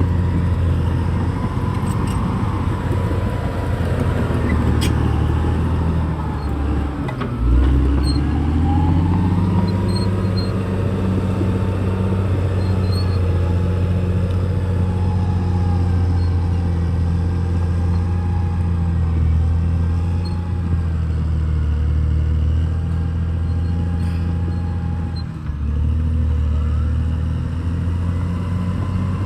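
Caterpillar D6R XL bulldozer's diesel engine running steadily under load. The engine note drops briefly and picks up again about seven seconds in, and dips once more near the end.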